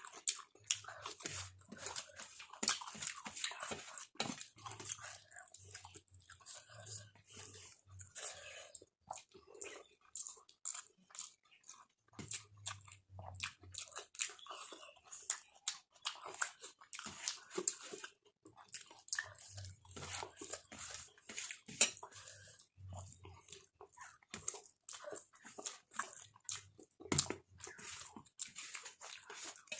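A person chewing and biting mouthfuls of a rice-and-curry meal, with irregular crackly mouth sounds and a few crunchy bites, pausing briefly now and then.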